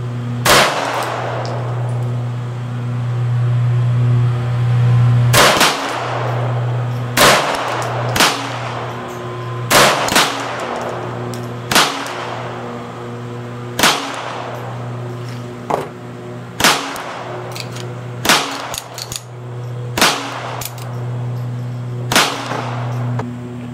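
About a dozen slow-fire shots from a CZ 82 pistol in 9×18 Makarov, one to a few seconds apart, each a sharp crack with a short ring after it. A steady low hum runs under the shots.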